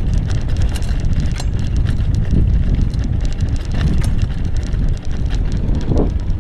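Wind buffeting the microphone while an e-bike rolls over a rough dirt trail, with scattered sharp clicks and rattles from the tyres and bike over gravel and bumps.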